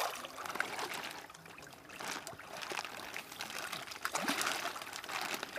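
Shallow pond water splashing and trickling irregularly as hands work through it around a large koi held in a net.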